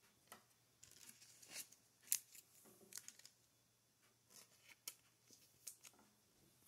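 Faint, scattered crinkles and clicks of trading cards and their pack wrappers being handled, the sharpest about two seconds in.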